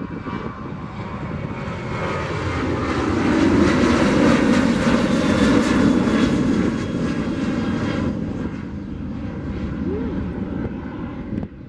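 Boeing 737-800 jet airliner's CFM56-7B turbofans at takeoff thrust as it climbs out. The rumble builds to its loudest about four to six seconds in, then fades as the jet moves away, and ends abruptly just before the end.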